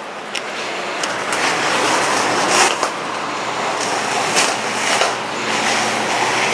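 Scraping and rattling of an air-blower hose being dragged and stretched out across the shop floor, with a few sharp knocks.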